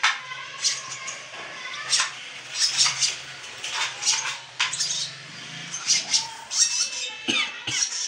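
Lovebird chicks giving repeated short, high squeaky chirps, with a few sharp clicks from a plastic syringe being handled.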